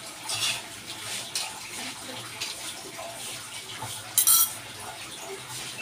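Kangkong sizzling steadily in a wok, with a metal spoon clinking and scraping against the pan a few times; the loudest clatter comes a little past four seconds in.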